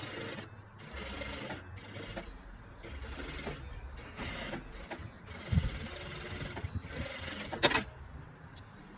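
Sewing machine stitching along a curved edge in short runs with brief pauses between them, and a sharp click near the end.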